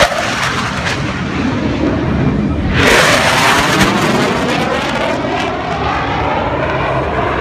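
Blue Angels F/A-18 Hornet jet making a low, fast pass and pulling up into a climb. The jet noise swells sharply to its loudest about three seconds in, then falls in pitch and trails off as the jet climbs away.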